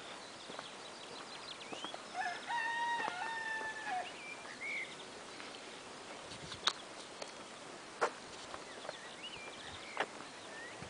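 A rooster crowing once about two seconds in, a long held crow that steps down and back up in pitch, with small birds chirping around it. A few sharp clicks come later.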